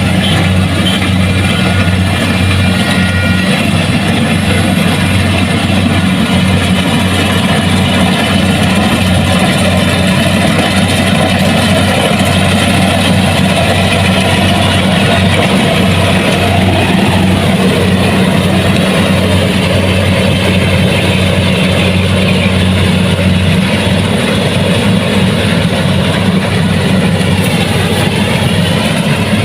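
Kubota DC70 Plus combine harvester's diesel engine running at a steady speed, a constant low drone.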